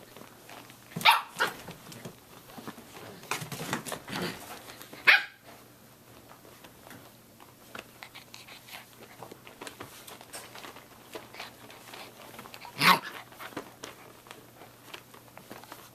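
Six-week-old Samoyed puppies barking in short, sharp yaps during play. A pair of barks comes about a second in, a cluster follows around three to five seconds, and a single bark comes near the end.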